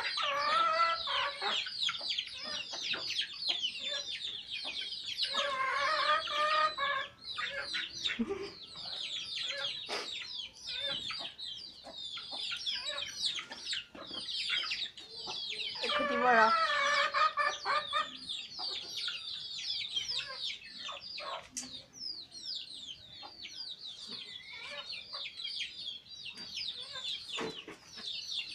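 A flock of young chickens peeping and clucking without pause: many short, high, falling chirps, with two longer, lower calls about five and sixteen seconds in.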